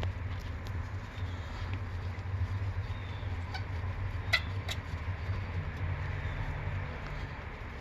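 A steady low hum with a few light metallic clicks from tools on the brake caliper as its guide pins are threaded in.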